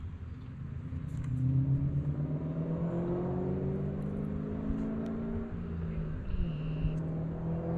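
A motor engine speeding up over the first couple of seconds, then running steadily at a constant pitch.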